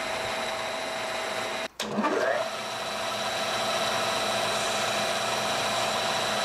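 Small metal lathe running steadily, its motor giving a steady whine as it turns down a steel arrow field point. The sound drops out briefly just under two seconds in, followed by a short sweep in pitch. The lathe then runs on with a hand file rasping against the spinning work.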